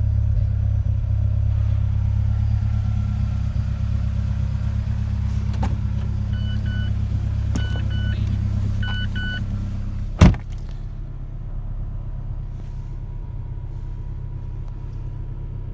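Mazda 3 MPS turbocharged four-cylinder idling cold through a CNT catted downpipe, Vibrant Ultraquiet resonator and stock cat-back exhaust: a steady low rumble. Three pairs of short electronic beeps sound over it, then about ten seconds in comes a sharp thump, loudest of all, after which the exhaust rumble is quieter.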